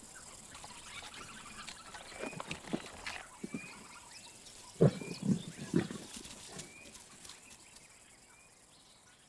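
A big cat grunting and growling in short bursts, a few at first and then three louder ones about five seconds in. Small bird chirps sound in between.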